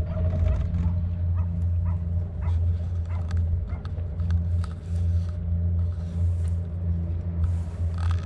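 Tramcar of Llandudno's cable-hauled Great Orme Tramway running along its track, heard from on board: a steady low rumble that swells and eases, with scattered light clicks and rattles.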